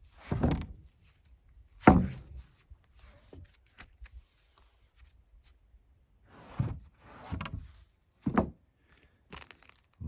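Sawn alder boards being handled on a sawmill's steel bed: several separate wooden thumps and scrapes as the lumber is shifted and set down, the loudest about two seconds in.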